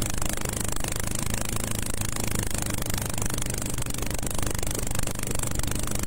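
Small engine of a ketinting longtail boat running steadily at cruising speed, a constant drone with a high hiss over it.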